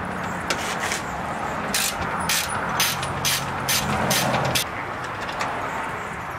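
Socket ratchet clicking in short strokes, about twice a second, as a bolt on the car's radiator support is worked loose; the strokes stop about four and a half seconds in. A low steady hum runs underneath and stops at about the same point.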